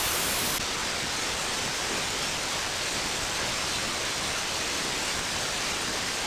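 Steady hiss of receiver noise from an RTL-SDR receiver's audio output, with no signal tuned in yet. About half a second in, the topmost part of the hiss cuts off as the receive mode is switched and a narrower filter is applied.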